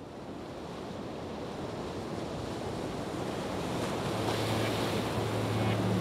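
Ocean surf washing and breaking over rocks, a steady rushing wash that fades in and keeps growing louder. About two-thirds of the way through, a steady low hum comes in underneath.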